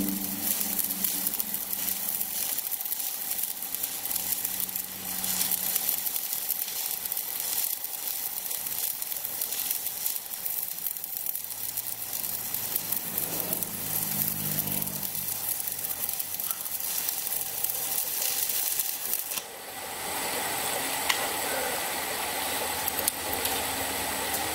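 Stick-welding arc from a 2.6 mm electrode, powered by a freshly repaired Rhino 160 inverter welder, burning steadily during a test weld. The arc stops about nineteen seconds in.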